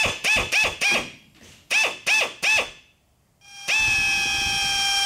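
Handheld power drill with a twist bit, its trigger pulsed in about seven short bursts that each spin up in pitch while the bit is started on a marked spot. After a brief pause it runs at a steady whine as it drills the screw hole.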